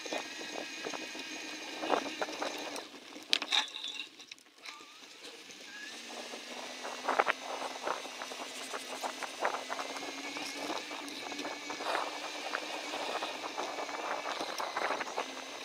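Bicycle being ridden along a dirt woodland trail: tyre noise with frequent clicks and rattles as the bike goes over bumps, under a faint steady hum, briefly quieter about four seconds in.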